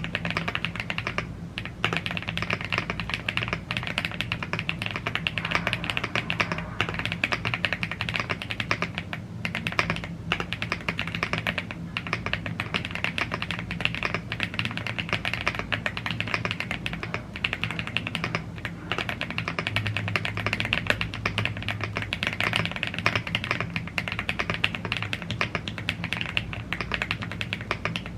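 Fast, continuous typing on a gasket-mounted aluminium mechanical keyboard with Blue Grey tactile switches and double-shot PBT Cherry-profile keycaps, the keystrokes running together with only brief pauses.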